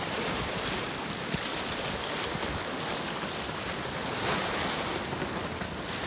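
Wind-whipped waves washing against a rocky shore, a steady rushing hiss that swells slightly now and then, with wind blowing.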